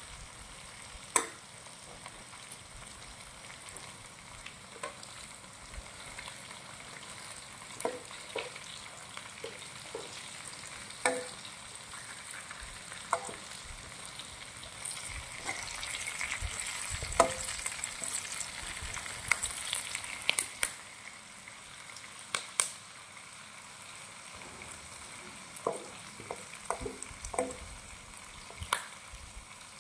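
Food frying in oil in a pan: a steady sizzle that grows louder about halfway through, with scattered clicks and knocks of a utensil stirring against the pan.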